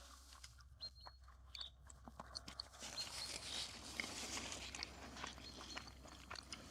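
Faint chewing and crunching of fried morel mushrooms and potatoes, with small scattered clicks, getting a little louder about three seconds in.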